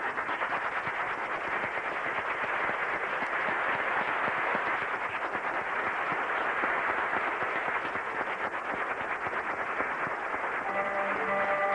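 Theatre audience applauding, a dense, steady clatter of many hands clapping. Near the end, held instrumental notes come back in over the applause.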